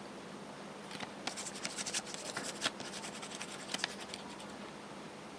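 Pen scratching across paper as a signature is written: a quick, uneven run of short faint strokes lasting about three seconds.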